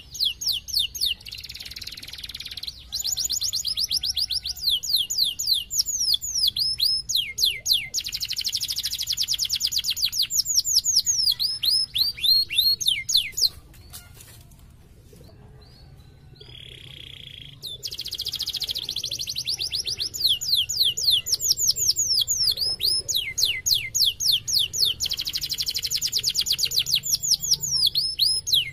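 Domestic canary singing in long, rapid rolls of downward-sweeping high notes, pausing for a few seconds midway before resuming.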